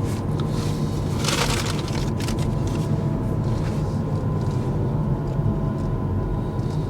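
Steady low road and tyre rumble inside the cabin of a Kia EV6 electric car, with a brief rustle about a second in.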